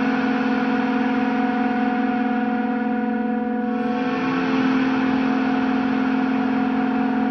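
Guitar drone played through a pedalboard of effects and loop pedals: a steady chord of held tones under a dense, noisy wash.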